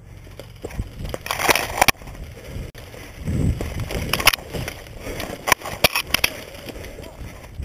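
Footsteps and dry twigs and brush crunching and rustling as a person pushes through woodland undergrowth. There are clusters of sharp crackling snaps about a second and a half in and again between four and six seconds in.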